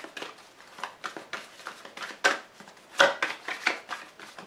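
A deck of Grand Jeu Lenormand fortune-telling cards being shuffled by hand, the card edges rustling and flicking against each other in quick irregular clicks, with a couple of sharper snaps about two and three seconds in.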